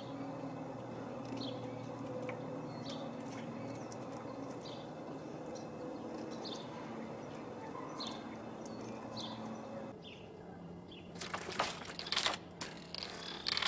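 Short high bird chirps every second or two over a steady low hum. About ten seconds in, this gives way to sharp clicks and scratching as a gray squirrel clambers on the window frame and vinyl siding.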